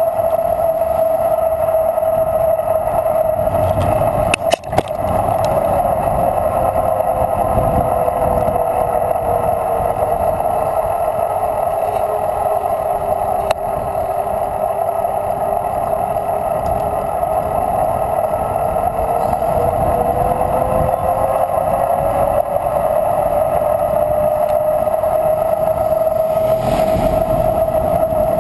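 Steady rolling hum of a mountain bike riding on asphalt, with road and wind noise. A fainter second tone slowly slides down and back up, and there is a brief knock about four and a half seconds in.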